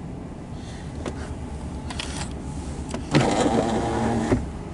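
A freight locomotive's air horn sounds one blast of a little over a second about three seconds in: a loud, steady chord of several tones that starts and stops abruptly. It rises over a low, steady rumble.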